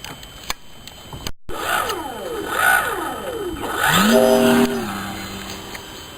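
Electric RC model airplane's motor and propeller whining in flight: the pitch slides down as it passes, then rises sharply with a throttle-up about four seconds in and holds steady before easing back. A few light clicks come before a brief cut-out near the start.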